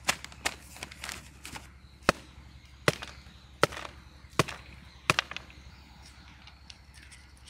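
Sharp knocks as a bamboo cooking tube is tapped against a metal plate to shake out the cooked chicken and biryani rice inside it: a few lighter taps first, then five louder knocks about three-quarters of a second apart, stopping a little past halfway.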